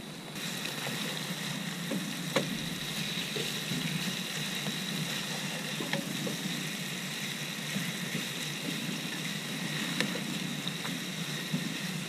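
Fish fillets sizzling in oil in a frying pan, a steady hiss that grows louder a moment in. Scattered light clicks of a metal spatula and fork against the pan as the fillets are turned.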